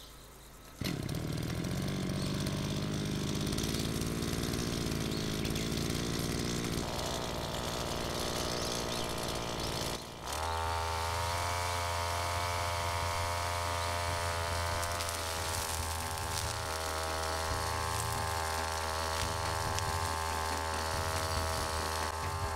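Backpack brush cutter's small engine running steadily. It dips briefly about ten seconds in, then comes back with a stronger, even hum.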